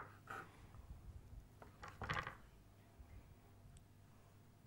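Faint handling sounds of small squares of bread being picked up and set down by hand on a wooden cutting board, with a sharp click right at the start; otherwise near silence.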